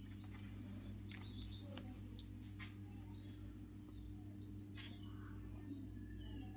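Faint birds chirping in short warbling phrases over a steady low electrical hum, with a couple of faint clicks.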